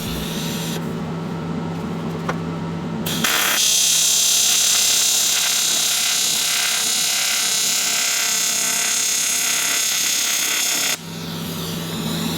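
Welding arc on aluminum cold-side piping, welding out a blow-off valve flange. It runs as a steady, buzzing hiss that gets louder about three and a half seconds in and stops abruptly about eleven seconds in.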